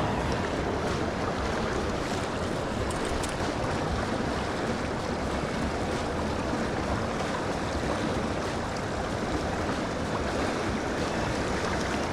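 Rushing water of a trout stream, a steady even rush.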